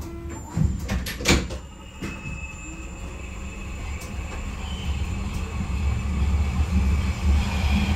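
Berlin U-Bahn F-series subway train: a few sharp knocks about a second in, like its sliding doors shutting, then the train's low running rumble with a faint high tone, growing steadily louder.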